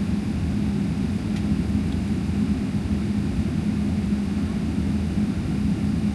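Steady drone of a Boeing 777-300ER's GE90 jet engines and airflow heard inside the cabin: a deep rumble with a constant hum, unchanging.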